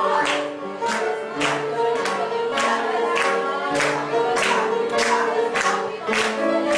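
Upbeat dance music with singing, and guests clapping along in time, a sharp clap a little under twice a second.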